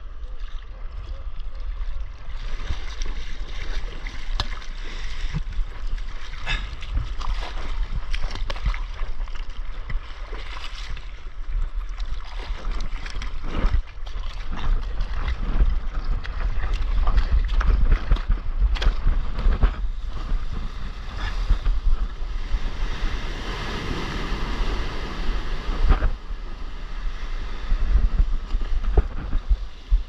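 Water splashing and sloshing against a surfboard, with steady wind rumble on an action camera's microphone and many short splashes from hand paddling. Later the rush of breaking whitewater grows as the board catches a wave and rides it in toward the shore.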